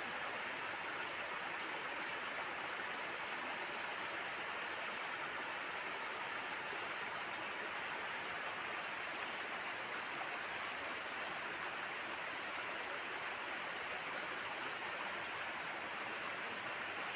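Steady, even outdoor hiss with no distinct events, with a thin, steady high-pitched whine above it.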